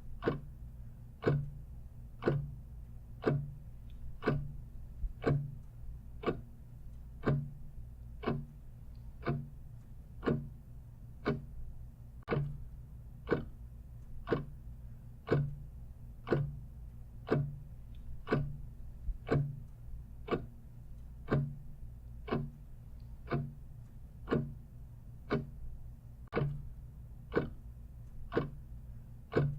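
Clock ticking steadily, about once a second, over a low steady hum.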